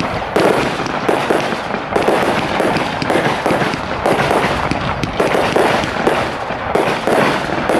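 Hercules single-ignition firework cake firing shot after shot, about two or three a second, with the launches and aerial bursts overlapping.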